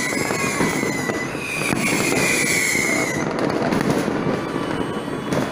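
Many fireworks and firecrackers going off at once in a dense, continuous crackle, with long whistles sliding down in pitch during the first three seconds.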